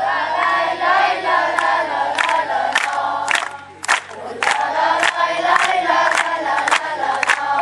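A group of children and teenagers chanting a song together in unison, with rhythmic hand claps about every half second to second.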